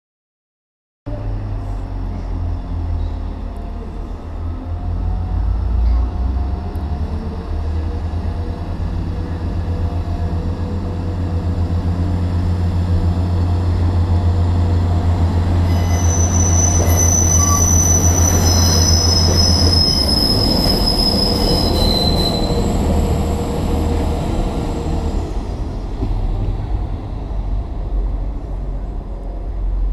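Transport for Wales diesel multiple unit running through the station, its engine giving a steady low drone that stops about twenty seconds in. High-pitched wheel squeals ring out for several seconds in the middle as it runs over the curved track.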